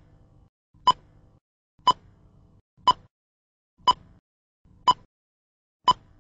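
Countdown-leader beeps: a short, sharp beep exactly once a second, six times, each marking the next number down. A faint low rumble follows each beep.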